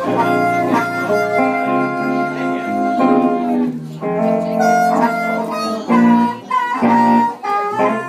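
Live blues band: harmonica played into a microphone, leading over a hollow-body electric guitar and an electric bass.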